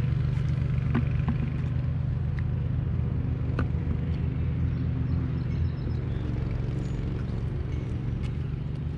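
An engine running steadily with a low, even drone, a little quieter from about six seconds in, with a few faint knocks over it.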